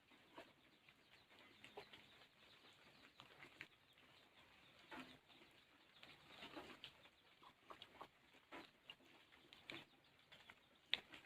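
Faint, irregular patter of rain dripping, with scattered light ticks.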